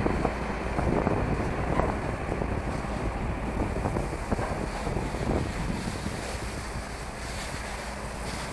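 Steady rushing of a fire hose's water jet spraying onto burning roadside grass and rubbish, with wind buffeting the microphone.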